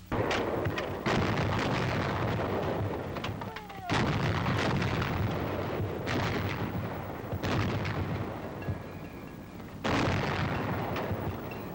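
90mm anti-aircraft guns firing: a string of heavy reports, each dying away, with the loudest about a second in, near four seconds and near ten seconds, and weaker shots between them.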